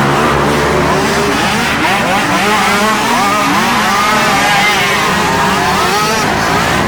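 Several racing ATV engines revving up and down, their pitches rising and falling and overlapping.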